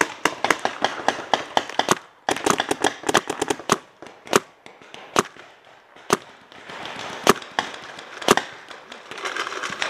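Paintball markers firing: rapid strings of sharp pops for the first few seconds, then single sharp cracks about once a second.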